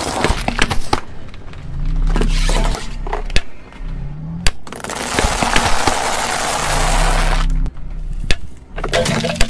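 Background music with a repeating bass line, over sharp snaps and dense crackling from objects being crushed under a car tyre, with two longer stretches of crunching.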